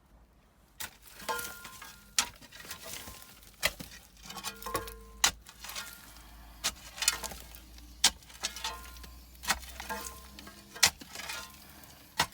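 Digging in soil and rubble: a sharp hit of a metal tool about every second and a half, with gritty scraping and brief metallic ringing between the hits.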